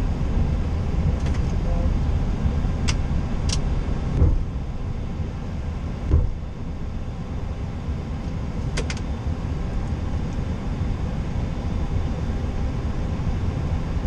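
Low, steady rumble inside a Boeing 737-800 cockpit as the airliner rolls along the runway after landing. Two short low thumps come about four and six seconds in, and a few brief high clicks sound around three and nine seconds in.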